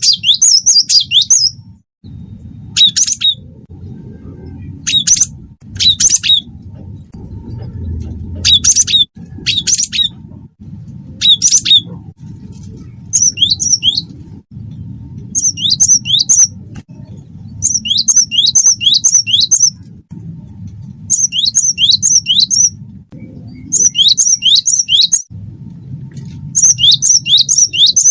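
Cinereous tit (gelatik batu wingko) singing: short sharp calls at first, then repeated loud phrases of three to five quick, high, downward-slurred notes every second or two, over a steady low hum.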